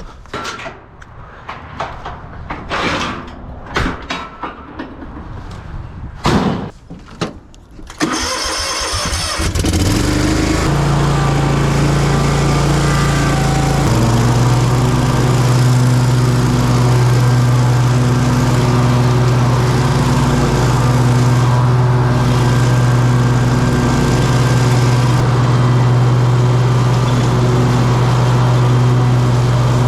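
Irregular handling knocks and rustles, then about eight seconds in an engine is started and settles into steady running.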